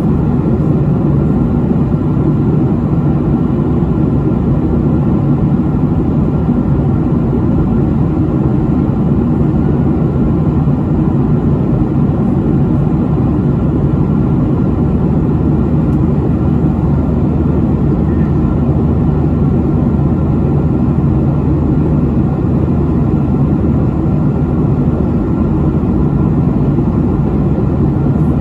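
Steady cabin noise of a Boeing 737 airliner in flight, heard from a window seat: the jet engines and the rush of air along the fuselage make a constant low drone that does not change.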